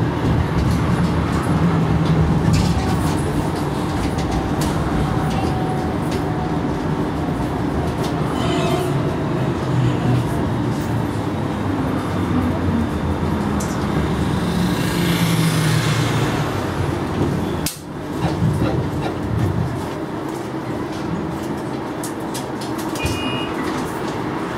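Tram running slowly on its rails as it draws into the terminus platform and stops at the buffer stop, heard from inside the driver's cab. A short electronic beep sounds near the end.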